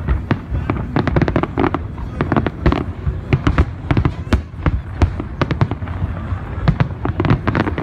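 Aerial fireworks shells bursting and crackling in rapid, overlapping succession, with many sharp bangs a second.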